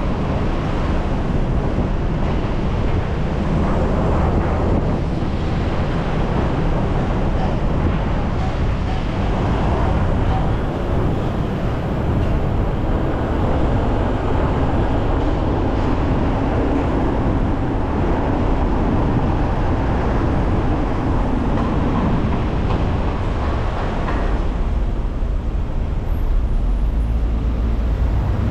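Steady road noise of a car driving on wet roads: tyre hiss over a low engine and road rumble. The low rumble grows heavier near the end.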